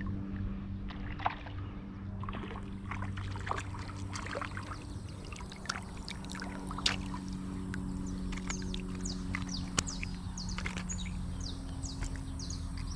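Steady low motor hum, with light trickling and splashing of water and scattered short high chirps of birds.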